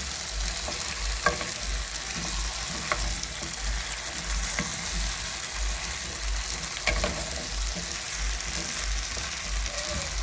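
Cabbage and onions frying in a pan with a steady sizzle, broken by a few sharp clicks.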